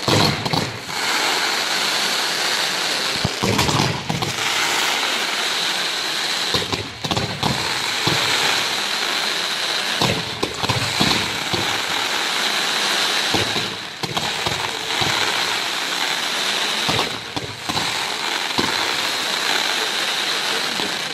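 Firework fountains and falling glittering stars hissing in a dense, steady rush. The rush is broken every three or four seconds by a short dull thump.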